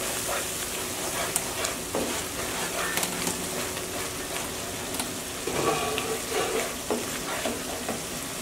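Wooden spatula stirring minced onions and spice paste as they sizzle in a nonstick pan, scraping the pan's surface with scattered clicks.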